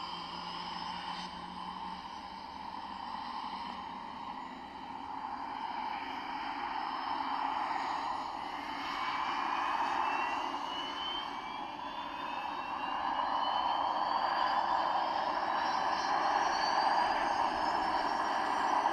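Electric 600-size RC helicopter (Align T-Rex 600E in a scale MD500E body) running, its main rotor and electric motor making a steady whirring whine. From about halfway the whine rises steadily in pitch and the sound grows louder as the head speed climbs.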